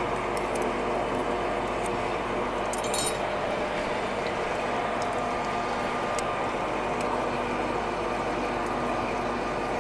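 Metal lathe running steadily with its coolant pump on, a mechanical hum of several held tones over the hiss and splash of coolant pouring onto the tool and work. A short metallic clink about three seconds in.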